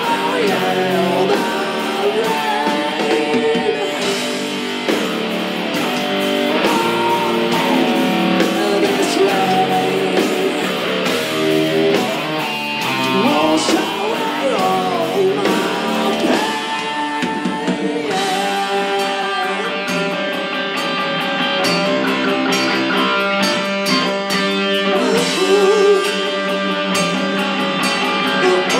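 Live rock band performing: electric guitars and drums with a male singer's vocals.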